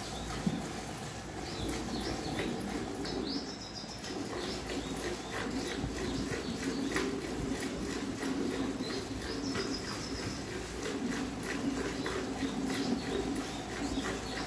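Hand-milking a cow: milk squirting in repeated spurts into a steel pail, with small birds chirping in the background.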